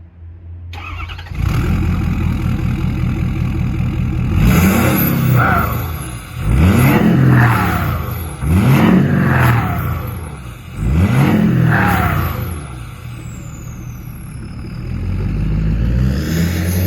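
Ford 6.7 L Power Stroke turbo-diesel V8 revved four times in quick blips from a steady idle, each rev rising and falling. A high turbo whistle winds down after each blip.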